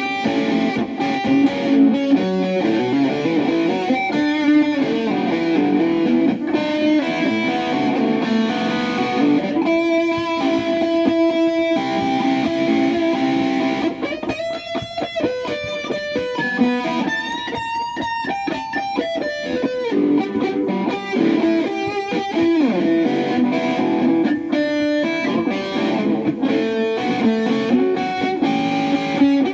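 Strobe Rambler electric guitar played through a small Roland amp with overdrive, in a blues: strummed chords broken by a run of quick single notes about halfway through.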